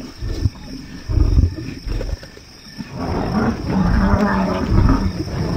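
Male lion growling over a springbok it has just caught. The growl is rasping and starts about three seconds in, after a few low thumps.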